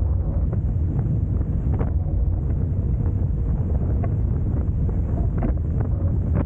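Wind buffeting the microphone in a steady low rumble, over the rush of water along the hulls of a Hobie Tiger F18 catamaran sailing fast, with brief slaps of water now and then.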